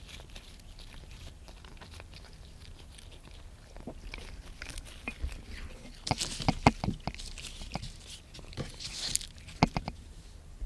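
A cat crunching and chewing a snack. Irregular sharp crunches come in a cluster around the middle and a few more near the end.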